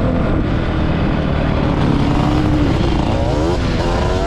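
Yamaha Banshee 350 quad's twin-cylinder two-stroke engine running at speed, its pitch climbing sharply about three seconds in as it revs up.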